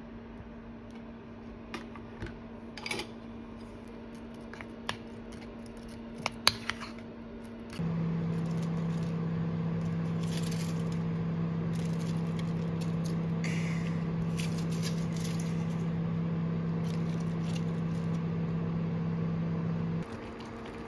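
A few light clinks of utensils on dishes, then from about eight seconds in a steady low hum with bubbling from a portable induction cooktop heating a pan of simmering tteokbokki. The hum cuts off suddenly near the end.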